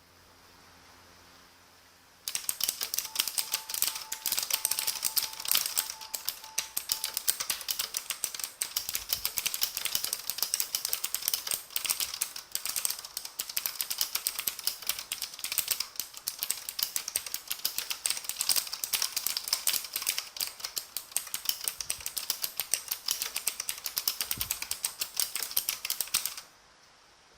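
Fast typing on the Element Z77 mechanical keyboard's clicky blue Outemu switches: a dense, continuous stream of sharp key clicks that starts about two seconds in and stops shortly before the end.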